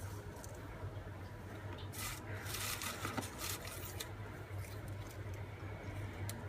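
Paper rustling and rubbing as small cut-paper craft pieces are handled, loudest for a second or two about two seconds in, with a few light clicks, over a steady low hum.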